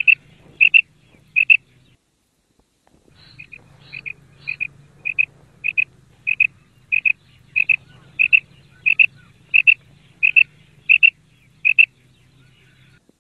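Female quail calling a short double note over and over, about one and a half calls a second: three calls, a pause of about two seconds, then a long run that starts faint and grows louder.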